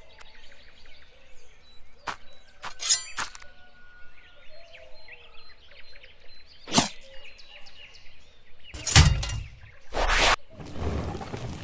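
Small birds chirping faintly and steadily as outdoor ambience, broken by a few sharp clicks and then two loud short bursts of noise near the end.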